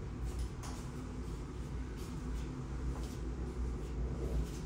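Steady low drone of a large car ferry's engines, carried through the hull into a small tiled washroom, with a few faint soft ticks.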